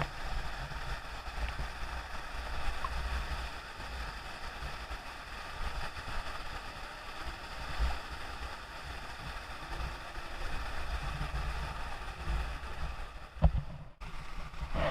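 Steady rush of falling water from a waterfall, with wind buffeting the microphone in low gusts. The sound breaks off briefly near the end.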